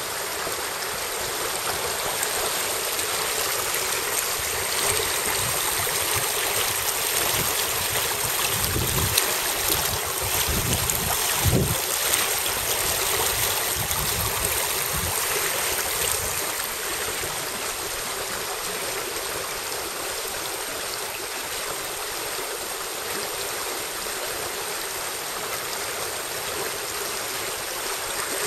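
Small burn running fast and shallow over a stony bed: a steady rushing of water, with a few low rumbles in the middle.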